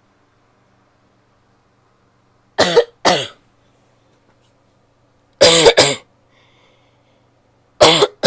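A woman coughing: three bouts, each of two quick coughs, a couple of seconds apart.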